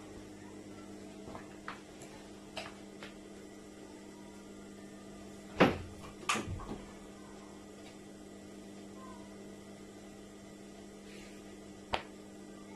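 Steady electrical hum around an idle industrial sewing machine, with a few knocks and bumps as a fabric blazer piece is handled on the machine table. The loudest knock comes about five and a half seconds in, followed by a short cluster of smaller ones. The machine is not stitching.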